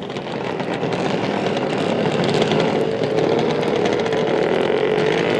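Small nitro RC car engine running hard at high revs, a steady buzzing whine that wavers slightly in pitch.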